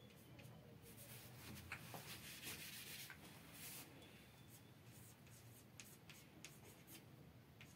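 Chalk writing on a blackboard, faint: soft scratchy strokes in the first half, then a run of short chalk taps and ticks.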